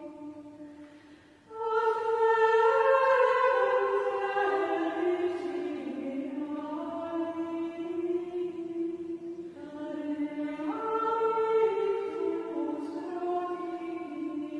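Choir of Benedictine nuns singing Gregorian chant in unison: a single flowing melody line, with a brief pause for breath about one and a half seconds in before the chant resumes.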